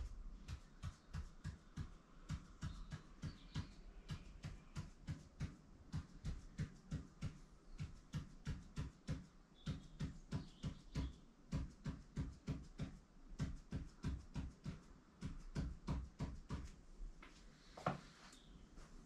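An ink marker tapping out short tally strokes on paper, a rapid, even run of ticks about three to four a second, each with a soft thud from the board behind. It ends with one louder knock near the end.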